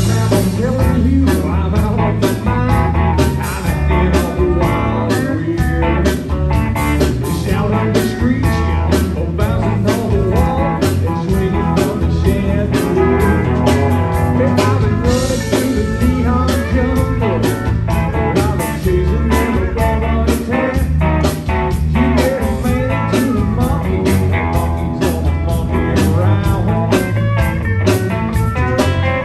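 Live band playing: electric guitar, pedal steel guitar, acoustic guitar and bass over a drum kit keeping a steady beat.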